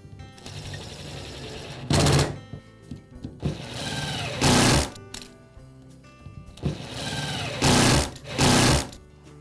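Cordless power screwdriver driving the gear case cover screws back into a DeWalt angle grinder: three bursts of motor whine whose pitch sags and recovers as each screw tightens. Background music plays underneath.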